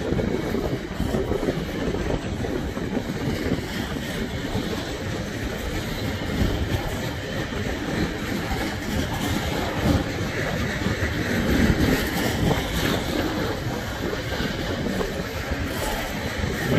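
Freight train of loaded open box wagons rolling past at speed: a steady rumble of wagon wheels on the rails, with the clickety-clack of wheels over rail joints.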